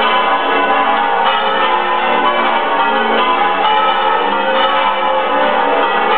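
Several church bells in the Córdoba Mosque-Cathedral bell tower swinging and ringing together in a continuous, loud peal, strokes from different bells overlapping so their tones blend into one clangour.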